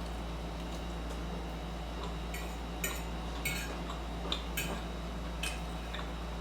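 Close-miked eating of a jerk chicken salad: a scatter of about seven short, crisp clicks and crunches from chewing and utensil contact, bunched in the middle of the stretch, over a steady low hum.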